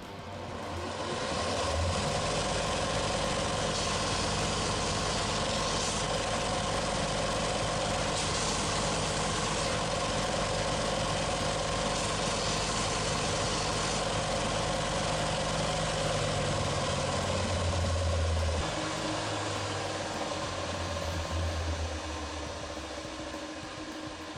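A small electric motor, such as a hand power tool, running steadily with a constant hum; about three-quarters of the way through it drops to a lower, quieter note.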